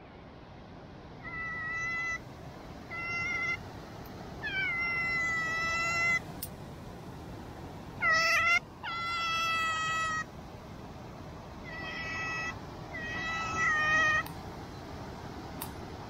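Pet otter calling with repeated high whining squeals, about eight in all, each from half a second to nearly two seconds long at a fairly steady pitch. Heard at feeding time, these are food-begging calls.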